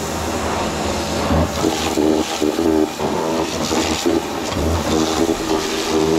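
Pressure washer spraying a jet of water, a steady hiss over the hum of its running motor.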